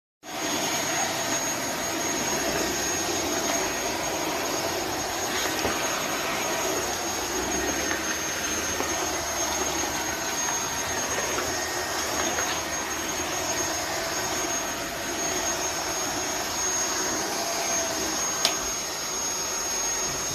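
Midea cordless stick vacuum cleaner running steadily, a loud even rush of air with a constant high-pitched whine from its motor. It starts abruptly and winds down near the end.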